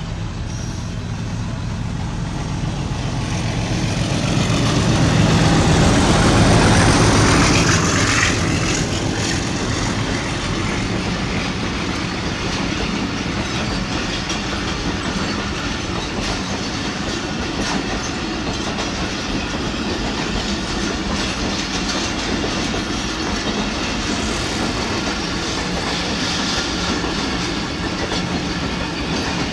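Train running on the track, its wheels clattering over the rails; the sound swells to its loudest about a quarter of the way in, then carries on steadily.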